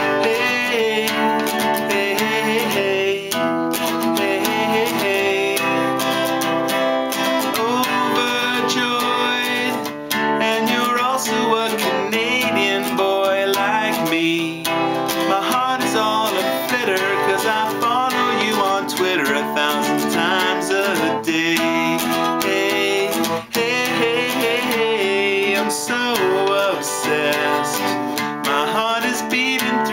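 Acoustic guitar strummed in a steady chord rhythm.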